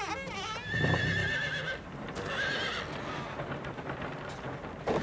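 A horse whinnying twice: a long whinny with a shaky, quavering pitch, then a shorter one about two seconds in.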